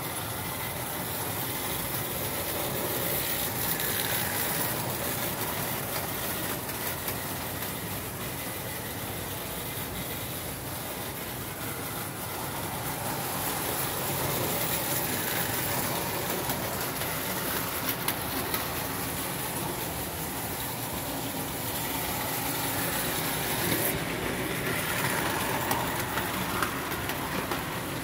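1950s Marx electric toy trains running on three-rail tinplate O-gauge track: a steady mechanical rattle and clatter of wheels on the rails, with fine clicks throughout.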